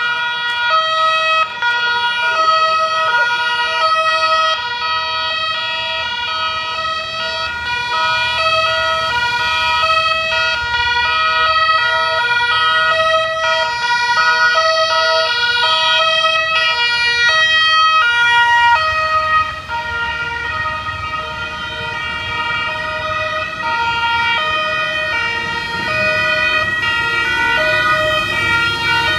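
Several two-tone police sirens sounding at once, each switching between a high and a low note about every half second and overlapping out of step. Underneath, a low rumble of motorcycle engines grows in the second half as the escort comes closer.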